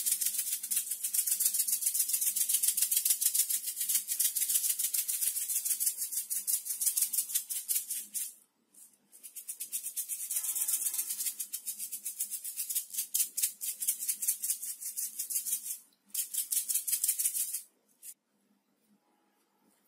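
Small plastic shaker of glitter shaken hard and fast: a dense, rapid rattle in three long runs, with brief pauses about 8 and 16 seconds in, stopping near the end.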